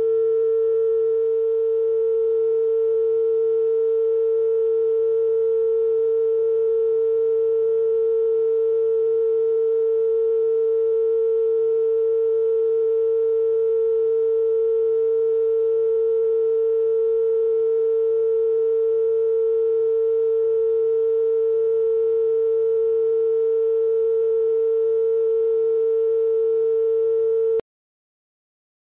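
Television station's sign-off test tone: a single steady mid-pitched pure tone with faint overtones, held unchanged until it cuts off suddenly near the end.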